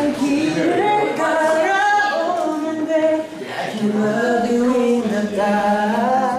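Two young men singing a cappella in harmony; about four seconds in, a lower voice comes in holding sustained notes under the melody.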